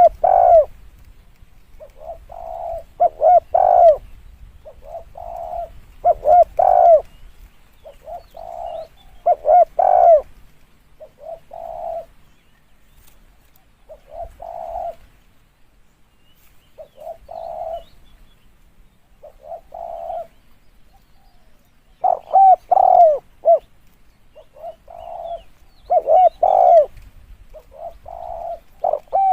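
Spotted dove cooing: a short phrase of several coo notes, repeated about every two to three seconds.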